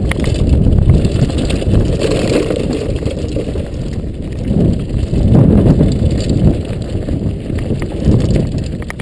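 Downhill mountain bike rolling fast down a dirt trail: loud low rumble of wind buffeting the camera microphone mixed with tyre noise. It surges in places and drops away sharply at the end as the bike slows.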